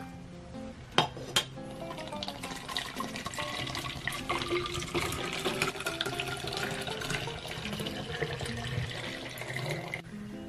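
Milk pouring from a carton into a plastic bottle, a steady splashing fill that stops about ten seconds in, under soft background music. Two sharp clicks come about a second in.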